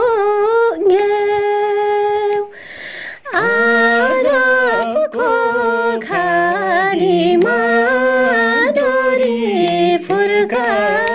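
A woman singing a Nepali folk song unaccompanied, holding long, bending notes. About three and a half seconds in, after a short breath, a man's lower voice joins and sings beneath hers.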